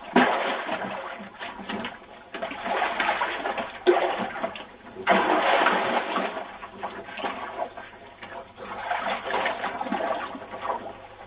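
Water splashing and churning around people struggling in chest-deep water, in repeated surges a few seconds apart.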